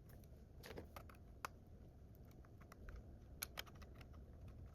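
Faint, scattered small clicks and taps of plastic drone parts and a small tool being handled as the DJI Mini 3's broken arm is worked free. The clicks are a little more distinct about a second and a half in, and there is a quick pair of them around three and a half seconds in.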